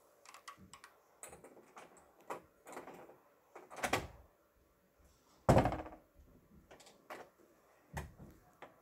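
A series of irregular knocks and thumps, the loudest a sudden one about five and a half seconds in.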